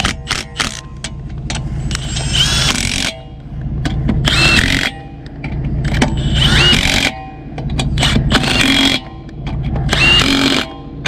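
Impact wrench running lug nuts in five short bursts about two seconds apart, each with a rising whine, over a steady low engine hum, with a few metallic clicks at the start.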